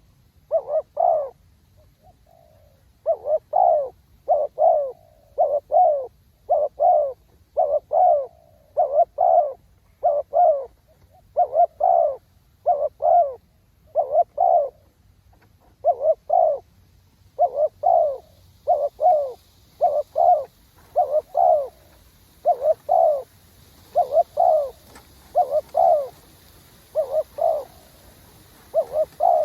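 Spotted doves cooing: short low coos in pairs, repeated about once a second, with a brief pause about two seconds in.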